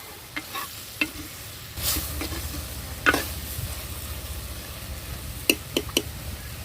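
Dried fish sautéing in oil, sizzling steadily while a ladle stirs it, knocking against the pan several times: one sharp knock about three seconds in and three quick ones near the end.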